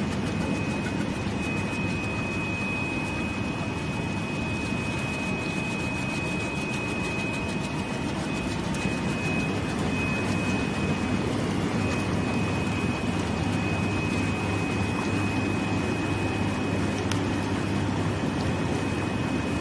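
Vegetable processing machinery running steadily: a continuous mechanical din with a thin, steady high-pitched tone over it.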